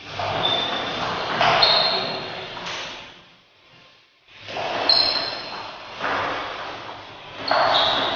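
Table tennis rally with the ball clicking on the bats and table, and short high-pitched squeaks. It drops to near quiet for about a second halfway through.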